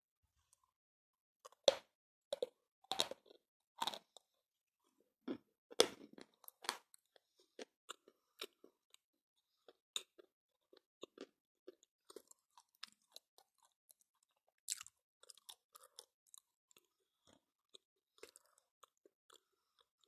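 Dry Kramatorsk chalk being bitten and chewed, crunching. Several loud crunches come in the first seven seconds, then the chewing goes on with quieter, sparser crunches.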